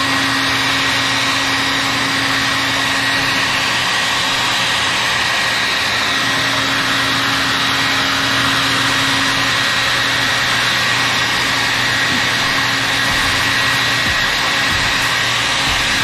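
A handheld hair dryer blowing continuously: a steady rush of air with a constant motor hum.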